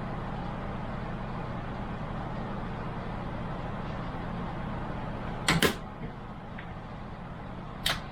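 Steady low hum of background noise, broken by two sharp double clicks about two seconds apart, like small hard parts being handled.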